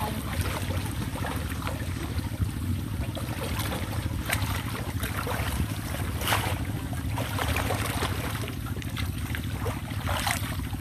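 Muddy canal water sloshing and splashing around people wading waist-deep and groping along the bottom and bank with their hands, with a few louder splashes. A steady low rumble runs underneath.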